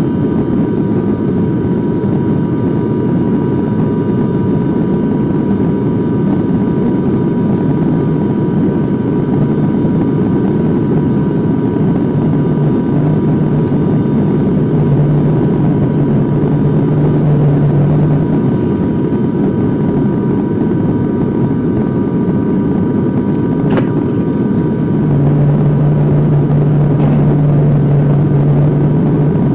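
Steady drone of a turboprop airliner's cabin in flight, with a constant propeller hum. A deeper hum swells twice in the second half, and there is a single small click near the end.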